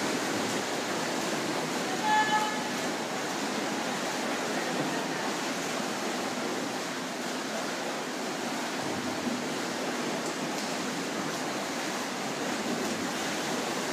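Steady rushing splash of several swimmers' freestyle strokes and kicks churning the water in an indoor pool. A short high-pitched shout about two seconds in.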